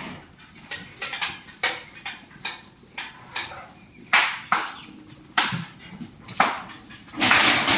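Goats' hooves knocking and scuffling on the ground as the herd is driven into the pen, in scattered irregular knocks, with a longer rush of scuffling near the end.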